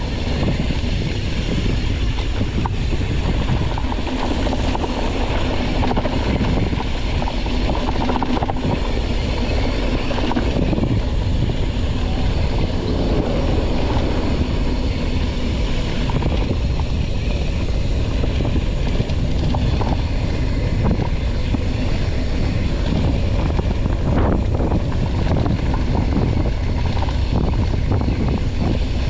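Steady rush of wind buffeting the camera microphone, with low tyre rumble, as a mountain bike descends at speed.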